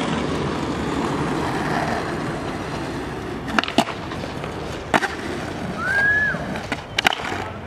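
Skateboard wheels rolling on smooth concrete, then sharp clacks of the board hitting a ledge and landing a little past three and a half seconds in, another knock near five seconds and a double clack near seven. A short high squeak near six seconds.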